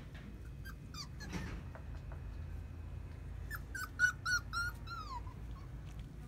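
Puppy giving a quick run of about six short, high-pitched yips or whimpers, the last one sliding down in pitch, after a few fainter ones about a second in.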